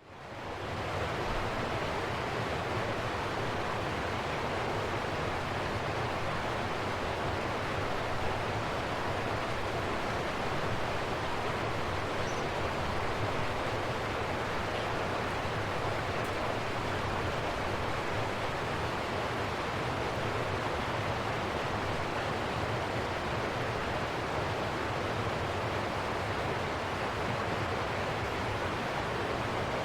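River water flowing in a steady rush, fading in over the first second.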